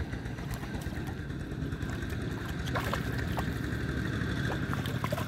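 A steady low engine hum, with scattered short clicks and small splashes of water.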